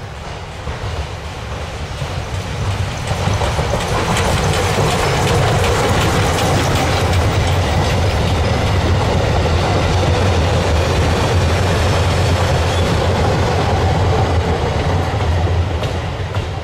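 Metre-gauge museum train rolling past on the track, its wheels clattering over the rail joints with a heavy low rumble. It swells over the first few seconds, holds steady, and eases slightly near the end.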